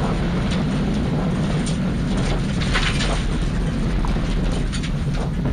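Subaru Impreza rally car's flat-four boxer engine running hard at speed, heard from inside the cabin over steady tyre and road noise on a dirt stage, with scattered knocks from bumps and stones hitting the car.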